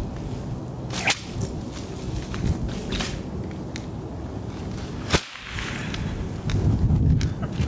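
Metal chain whip cracking several times, sharp snaps with the loudest about five seconds in, as it cuts through a drinking straw standing in a cup of water.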